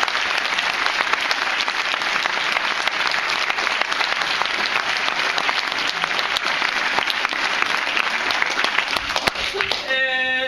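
Audience and cast applauding, a dense steady clapping that dies away near the end as a voice begins to speak.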